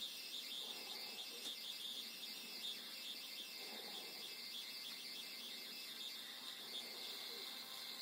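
Phomemo P12 thermal label printer printing a sticker: a steady high-pitched whine as the label tape feeds out of the slot.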